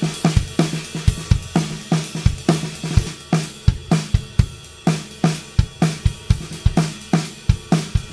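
Background music: a drum-kit beat with hi-hat and cymbal over a repeating bass note, in a steady rhythm.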